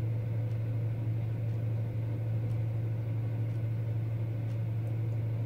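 Worcester gas boiler firing, a steady low hum from its fan and burner. The boiler is still running with the timer and all controls off, overheating as its flow temperature climbs past 90 degrees.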